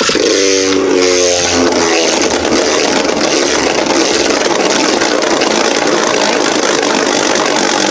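Genesis Valtryek remote-control Beyblade spinning and skidding around a plastic Beyblade stadium: a loud, steady whirring rattle. A humming tone sounds over the first couple of seconds.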